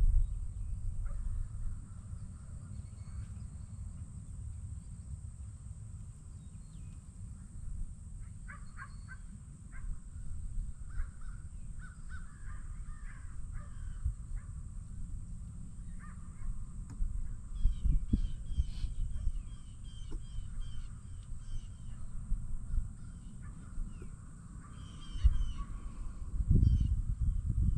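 Birds calling outdoors in short repeated notes, over a steady low rumble that swells louder a couple of times.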